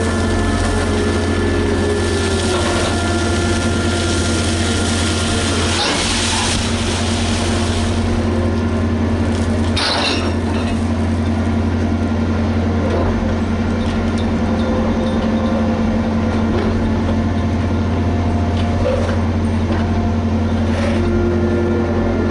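Diesel engine and winch drive of a Liebherr HS 8200 dragline running steadily under work, a constant low drone with a few steady whining tones above it. There are brief rattling, noisy bursts about six and ten seconds in.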